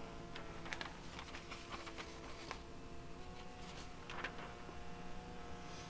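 Printer running as it feeds out a printed sheet: a steady motor whine in several tones with scattered clicks and ticks, the motor's tone shifting about three seconds in.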